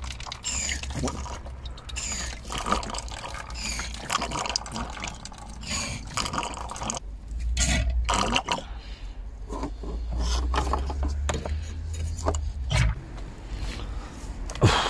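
A hand squeeze-bulb suction pump drawing old, sludgy brake and clutch fluid out of the reservoir through a clear hose, the fluid slurping and gurgling into a plastic bottle in uneven spurts.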